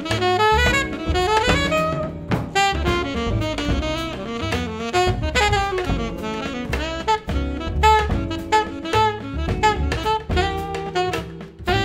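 Background jazz music: a saxophone melody over a drum kit.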